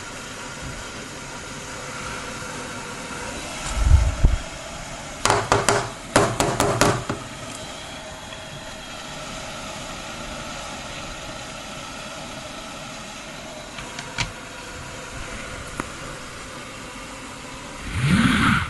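Bathroom ventilation fan running with a steady whirring drone. A thump about four seconds in is followed by a quick run of clicks and clatter, and there is a low rumbling swell near the end.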